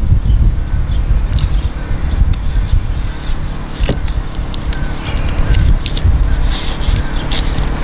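Crinkling and scraping of butyl sealing tape and its paper backing as it is unrolled and peeled by hand, in short irregular crackles, over a steady low engine drone.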